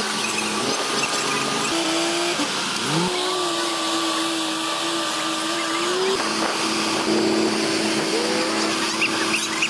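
Bulldozer diesel engines running under load. The pitch rises about three seconds in, holds, then drops around six seconds, over a steady hiss.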